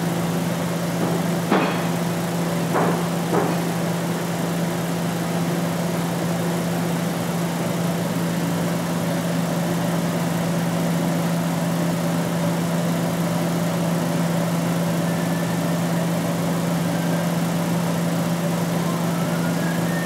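Steady low hum with an even, fan-like hiss from induction heating equipment running, with a few light clicks in the first few seconds.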